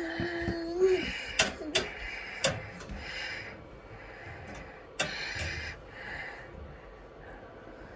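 Wheelie bins being tipped by a refuse truck's Terberg bin lift: sharp knocks of plastic bins against the lift and clattering bursts of rubbish dropping into the truck, with four loud knocks, the last about five seconds in.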